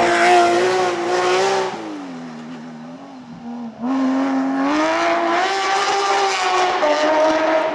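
Porsche 997 GT3 rally car's flat-six engine at high revs as it passes close, its pitch falling and fading as it goes away. About four seconds in, a rally car's engine accelerates hard out of a hairpin, the revs climbing, with a gearchange near the end.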